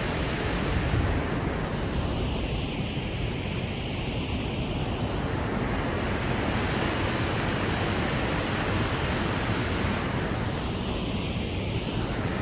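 Waterfall rushing: a steady, full roar of falling water, with a slow swirling change in its tone twice.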